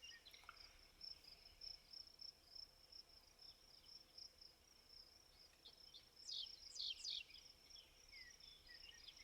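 Faint, steady, high-pitched insect trill, like crickets, with a few short chirps that are loudest about six to seven seconds in.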